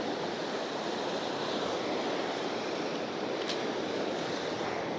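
Sea surf washing steadily on the beach, with a single short, sharp click about three and a half seconds in.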